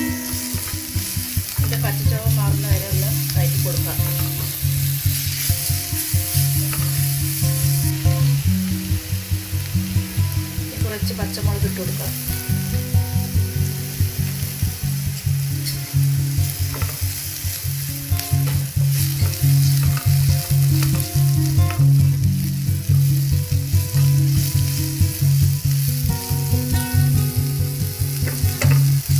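Sliced onions frying and sizzling in oil in a nonstick frying pan, stirred and scraped with a spatula, under background music with a steady beat.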